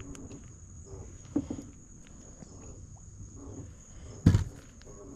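Insects trilling steadily in one high thin tone, with a single sharp knock about four seconds in and faint handling rustle.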